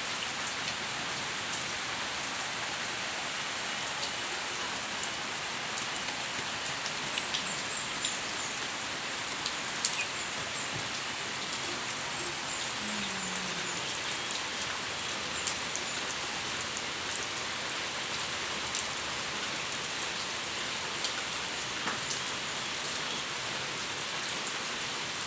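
Steady rain falling, an even hiss with scattered small ticks of drops.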